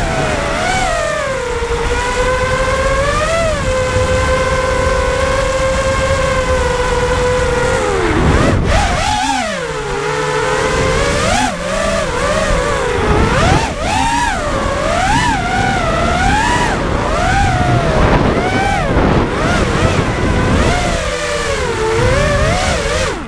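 FPV racing quadcopter's brushless motors and DAL T5045 tri-blade props whining under heavy wind noise. The pitch holds steady for several seconds, drops sharply about a third of the way in, then swings up and down again and again as the throttle changes through turns.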